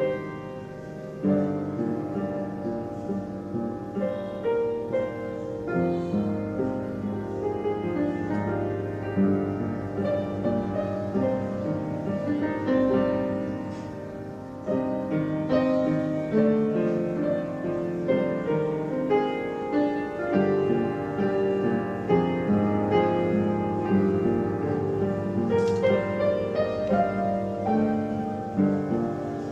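Background piano music with a steady run of notes, softening briefly about halfway through.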